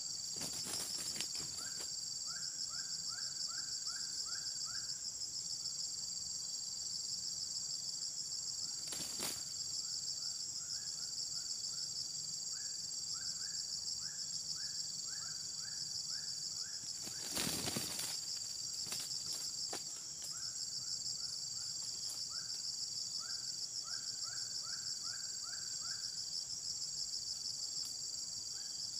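Steady, high-pitched insect chorus with a fast pulse. Runs of about six short rising chirps come every few seconds over it. There is a brief rustle or knock about nine seconds in and again near eighteen seconds.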